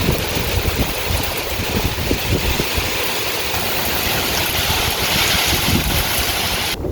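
Heavy hurricane rain with strong wind buffeting the microphone: a loud, even hiss over gusty low rumbling that starts suddenly and cuts off suddenly near the end.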